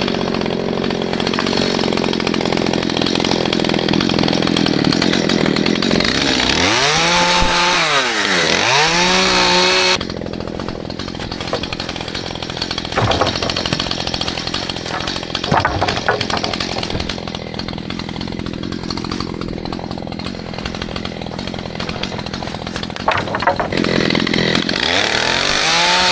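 Stihl MS211 two-stroke chainsaw running loud for about the first ten seconds, revving up and down twice near the end of that stretch. It then runs quieter for a while, with a few sharp knocks, and revs up again near the end.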